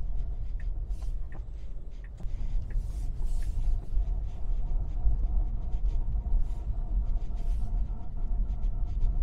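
Inside a Tesla Model 3 rolling slowly on winter tyres over a snowy road: a steady low tyre and road rumble, with short scraping sounds from the brakes now and then, caused by a light film of rust on the brake discs after the car has stood in the frost. Faint light clicks come at a regular pace.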